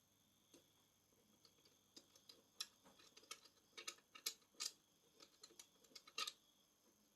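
Faint, irregular light clicks and taps of hands handling the action camera and its plastic packaging, coming thicker from about two seconds in until just past six.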